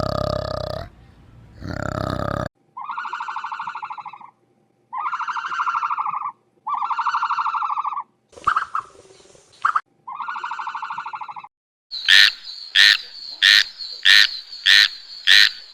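A series of animal calls: four drawn-out buzzing calls, each about a second and a half long, followed near the end by six short, sharp calls about half a second apart.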